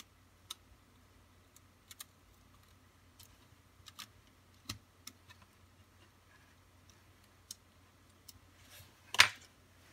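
Small sharp clicks and taps of steel tweezers and fingertips against the plastic turnout base and circuit board, scattered about once a second, with one louder clack about nine seconds in.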